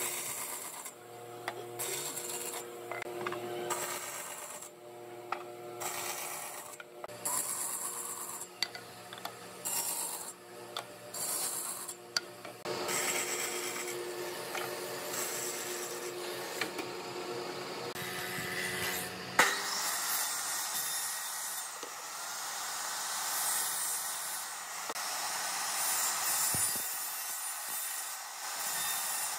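Bandsaw cutting wooden strips in a series of short passes, the noise of the blade in the wood coming and going. About two-thirds through, a sharp click gives way to a steady hiss and whine from a circular miter saw cutting through a stack of small wood blocks.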